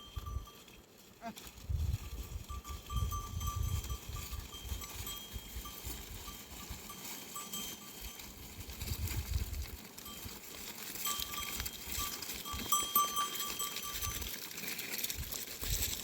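Bells on a goat herd clanking and ringing as the animals move, with gusts of wind rumbling on the microphone.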